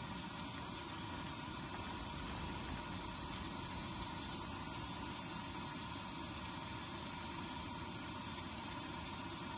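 Steady low hiss and hum with a few faint steady tones and no distinct events: background noise.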